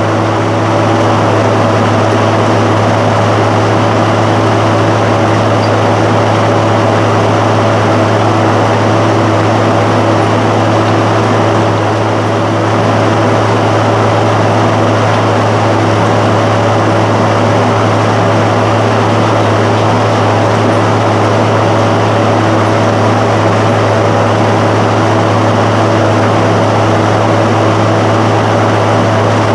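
John Deere 7515 tractor's diesel engine running steadily at a constant speed, a loud, even drone with a strong low hum.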